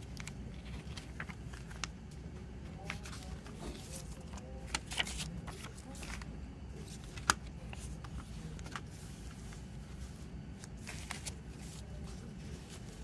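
Paper rustling and light taps as a CD lyric booklet is handled and laid down with its CD case, over a steady low hum; one sharp click about seven seconds in is the loudest sound.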